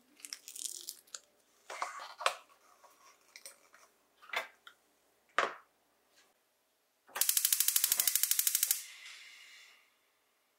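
Frozen blocks of beef bone broth knocked out of a silicone tray and dropping into a stainless steel pot: several separate knocks and thuds. About seven seconds in, a gas hob's igniter clicks rapidly for about a second and a half, followed by a softer hiss that fades away.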